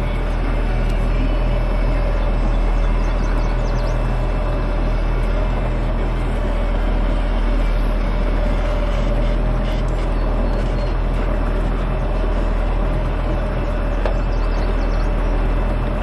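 Small boat's motor running at a steady speed, a constant low drone with a steady tone over it.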